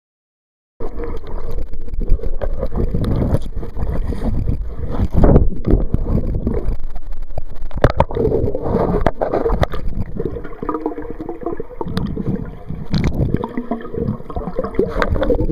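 Muffled rushing and gurgling of water picked up by a waterproof camcorder's microphone held underwater, with a few sharp clicks. It starts after about a second of silence.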